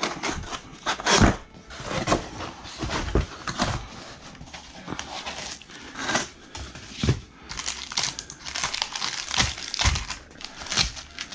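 Cardboard rifle box being opened and handled: the lid and flaps rubbing and knocking, with the plastic bag wrapping the rifle crinkling. Several sharp knocks stand out, about a second in, around seven seconds and near ten seconds.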